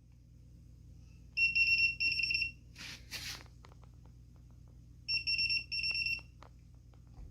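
Electronic fingerprint keypad door lock beeping: two pairs of short, high, warbling beeps a few seconds apart, with light clicks and a brief double hiss between them.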